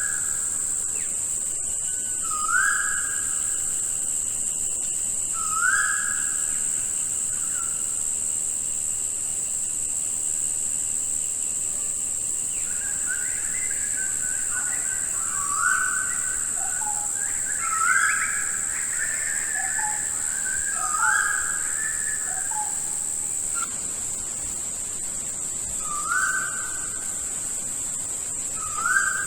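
Rainforest bird chorus over a steady high-pitched insect drone. One bird repeats a short whistled note seven times, every few seconds. Other birds add chirps and lower notes through the middle.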